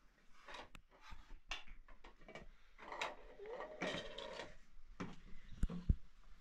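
A metal spoon scraping and clinking in a metal pot and on a metal tray as cooked rice is dished out: a string of short scrapes and knocks, busiest in the middle, with two dull thumps near the end.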